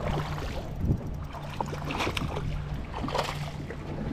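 Steady low hum of a fishing boat's motor, with wind noise on the microphone that swells twice, about two and three seconds in.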